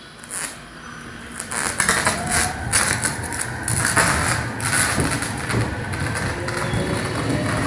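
Electric train's pantograph arcing against the overhead wire as the train pulls away: a run of sharp crackling snaps, densest from about one and a half to five seconds in, which the uploader suspects comes from ice on the wire. The train's motor whine rises in pitch near the end.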